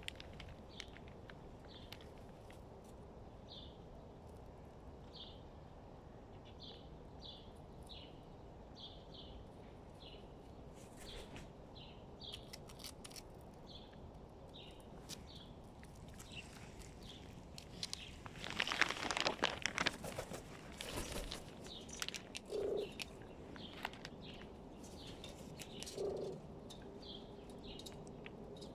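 Hooded crow making unusual noises: a long series of short high chirps, roughly one a second, then a louder harsh burst of calling about two-thirds through, and two short low hooting notes near the end.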